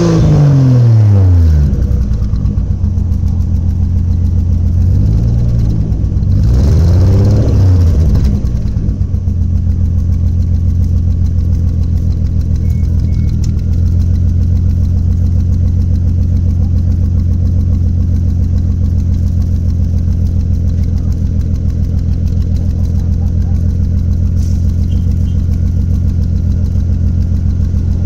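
Toyota 1JZ straight-six engine with a misfire, its revs dropping back to idle, blipped twice briefly about 5 and 7 seconds in, then idling steadily with an uneven pulse. The owner says the misfiring engine almost sounds like a Subaru.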